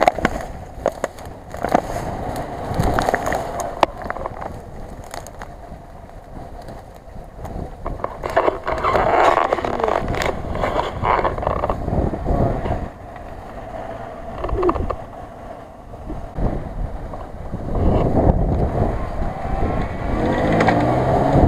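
Off-road SUV's engine running and revving in surges as the vehicle wades through deep water, loudest near the middle and again toward the end.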